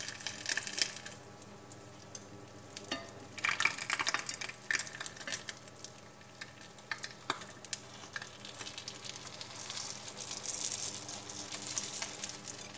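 Rice paper topped with egg and sausage slices frying in a nonstick pan, crackling and sizzling, busiest twice in the middle and toward the end. Chopsticks and a plastic rice paddle scrape at its edges and knock against the pan a couple of times.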